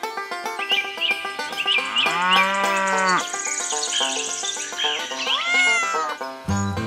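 Light background music with two drawn-out meows dubbed over it: a longer, lower one about two seconds in and a shorter, higher one near the end.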